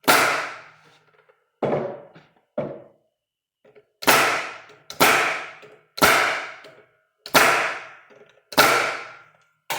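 About nine sharp impacts, roughly one a second, each with a short ringing decay, as the corners of a wooden 8-frame hive body are fastened together. Two strikes near the start are quieter than the rest.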